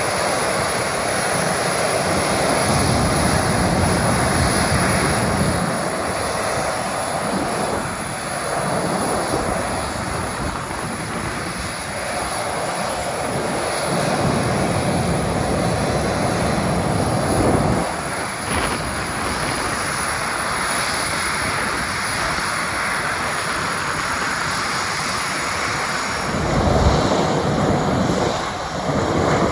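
Boeing 737-400's CFM56 jet engines running at low taxi thrust as the airliner rolls by, a steady jet rush with a high whine. Underneath, a low rumble swells and fades irregularly.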